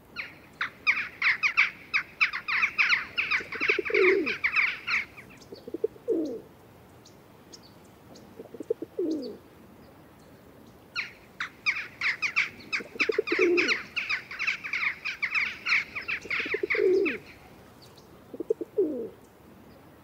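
Feral pigeons cooing, low falling coos every couple of seconds. Over them, twice, a long run of rapid sharp chattering notes from another bird, each run lasting about five seconds.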